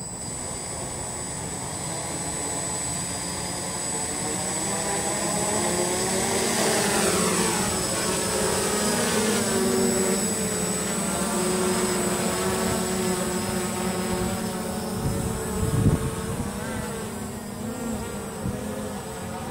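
DJI F550 hexacopter's six electric motors and propellers buzzing as it lifts off and climbs, a steady many-toned drone whose pitch shifts with the throttle and grows louder over the first several seconds. A brief low thump stands out a bit past three-quarters through.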